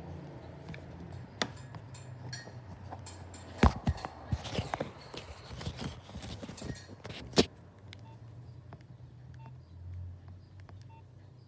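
Nokia 2660 mobile phone being handled, with a run of sharp clicks from its keys and body, then a few short soft beeps about a second apart as its keys are pressed.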